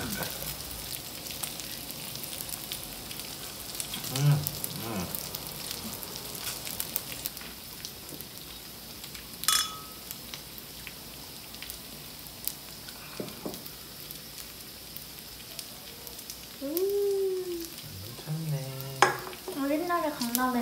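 Freshwater eel pieces sizzling and crackling on a round tabletop grill plate. There is one short ringing clink about nine seconds in.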